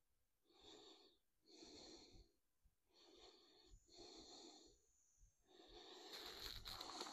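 A person breathing faintly close to the microphone: about five soft breaths at uneven spacing, the last one longer.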